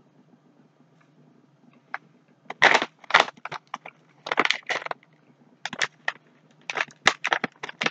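Tastykake mini donuts snack bag crinkling as it is gripped and handled, in a run of sharp crackling rustles starting about two and a half seconds in.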